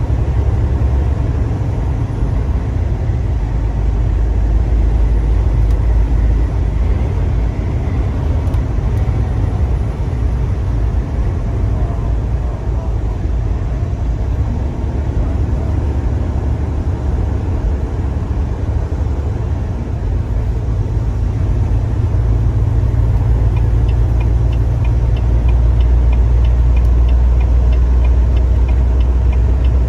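Steady low rumble of a car driving, growing a little louder in the second half, with a regular fast ticking, like a turn signal, starting near the end.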